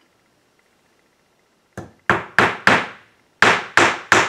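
Hammer driving a nail into the wooden box of a birdhouse kit: about eight quick blows, starting nearly two seconds in, in two runs of four with a short pause between.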